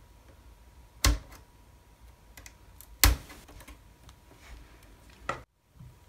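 Clicks and taps of small modelling hand tools on a workbench, with two sharp clicks about two seconds apart and lighter ticks between.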